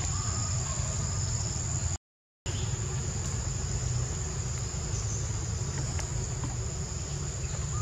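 Insects trilling in a steady, continuous high tone over a low rumble, with a few faint clicks. The sound cuts out completely for about half a second about two seconds in.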